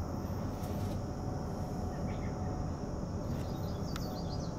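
Distant, steady low rumble of a Cessna Citation CJ3's twin turbofan engines as it lands, under a steady high insect hum. A few short bird chirps come about two seconds in and again around three and a half seconds.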